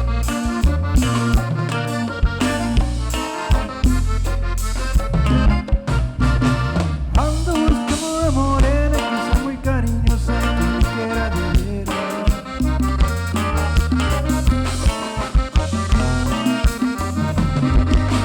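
Cumbia band playing an instrumental passage with a steady beat, bass and drums.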